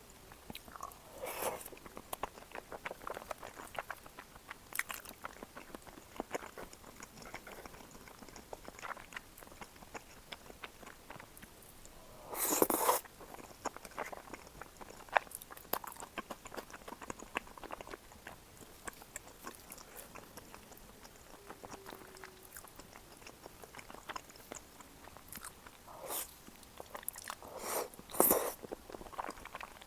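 Close-miked eating sounds of shrimp cream tteokbokki: biting and chewing with many small sharp clicks. There are a few louder noisy bursts, one about halfway through and two near the end.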